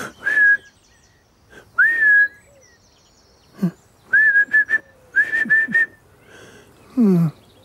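A man whistling to call a cat: a short whistle, then a rising whistle that holds, then two quick runs of short repeated whistles. Brief low vocal murmurs come between the runs and near the end.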